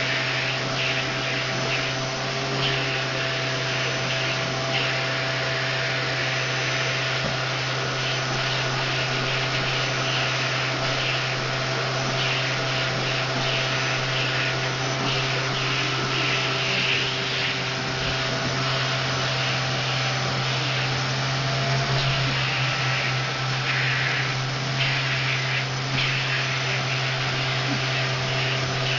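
Vacuum cleaner running steadily with its nozzle drawn through a long-haired cat's fur, grooming her; the steady motor hum sits under a suction hiss that swells and fades as the nozzle moves over the coat.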